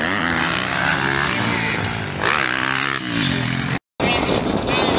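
MX1 motocross bike engine revving hard, its pitch rising and falling again and again as the throttle is worked over the jumps. The sound drops out for a moment just before the end.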